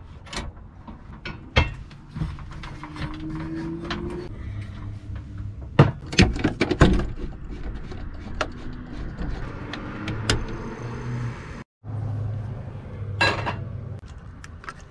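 Clicks, knocks and clatter of cooking gear being handled at a propane camp stove and a roof vent fan, with the sound cutting out for a moment a little before the end. Near the end comes a cluster of sharp clicks as a pull-tab can is worked open.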